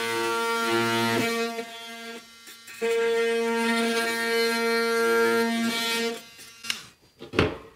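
Milwaukee cordless oscillating multi-tool buzzing at a steady pitch as it cuts through quarter-round shoe molding at the floor. It runs in two stretches of about three seconds with a short pause between, and a couple of sharp knocks follow near the end.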